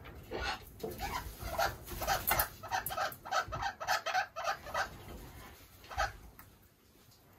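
Parrot calling in a quick run of short, harsh squawks, about three or four a second, for about four seconds, with one more squawk about six seconds in.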